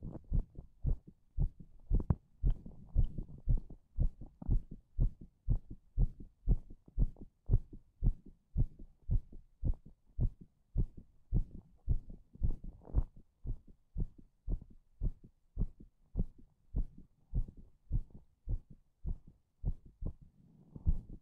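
A strong heartbeat: low thumps in a steady, even rhythm, with louder, noisier beats near the end.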